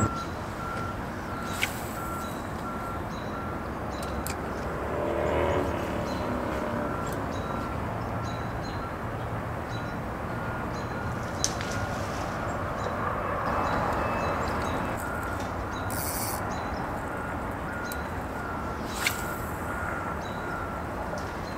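A vehicle's reversing alarm beeps about once a second over a steady background hum. Three sharp clicks stand out as the loudest sounds.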